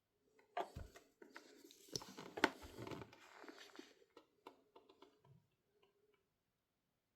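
Handling noises: a run of clicks and knocks with some rustling, the loudest knock about two and a half seconds in, fading out with a few light clicks.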